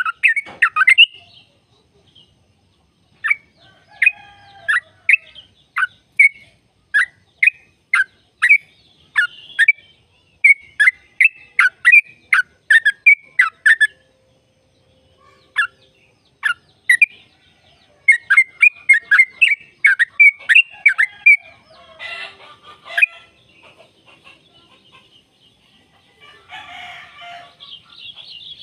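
Yellow-vented bulbul (trucukan) singing in long, rapid runs of short, sharp whistled notes that fall in pitch, broken by brief pauses, with a harsher chattering in the last third.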